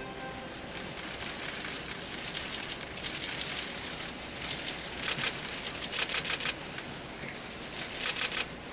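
Theatre audience applauding as a song ends: a steady wash of clapping with clusters of sharp nearby claps. The last held notes of the music die away just after the start.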